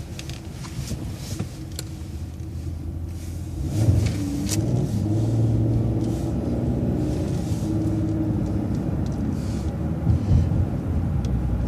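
City transit bus engine and road rumble; about four seconds in the engine grows louder and holds a steady pitched note as the bus pulls away.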